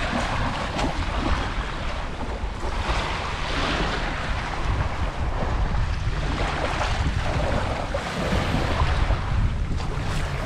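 Sea waves washing onto the shore, the surf surging every few seconds, with wind rumbling on the microphone.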